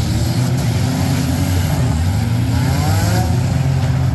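Engines of several compact demolition-derby cars running loudly together, with revs rising in pitch a little past halfway.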